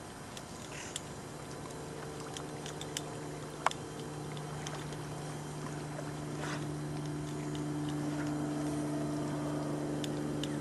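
A motor running with a steady drone, growing slowly louder, with a few sharp clicks in the first few seconds.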